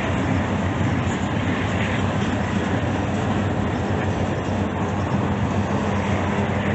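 Freight train cars (covered hoppers, tank cars, a flatcar) rolling past: a steady rumble of steel wheels on the rails.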